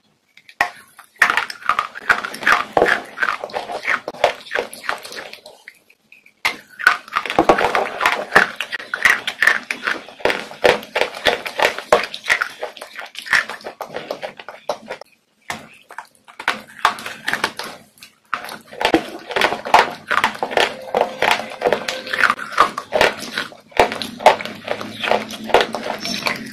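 Close-miked biting and chewing of ice: rapid, crisp crunching in runs of several seconds, with short pauses between bites.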